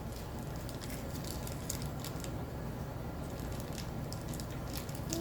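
Faint clicks and light rustling of small metal pins and their packaging being handled, over a steady low hum.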